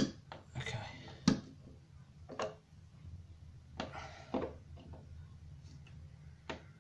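Screwdriver turning the metal faceplate screws of a plastic USB double wall socket, making a series of short, irregular clicks and scrapes as the screws are tightened.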